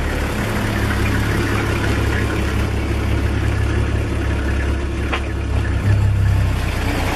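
A vehicle engine idling steadily with a low hum, with a single short click about five seconds in.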